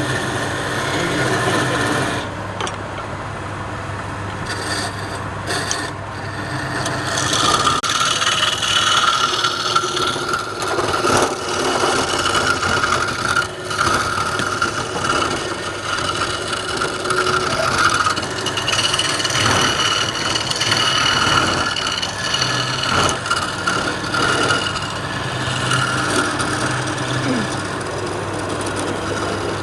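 Wood lathe running with a turning tool scraping and cutting the spinning wood, over the motor's steady hum. A steady high tone joins from about seven seconds in.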